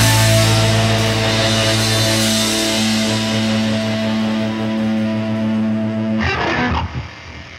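Background rock music: one held chord rings on, then breaks off about six seconds in and fades away.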